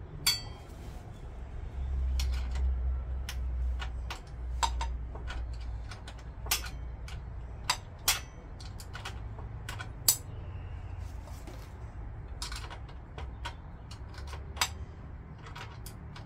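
Irregular metallic clicks and knocks of spanners working the rear-wheel chain adjuster nuts on a motorcycle, taking up slack in the drive chain. A low rumble sits under the clicks from about two to five seconds in.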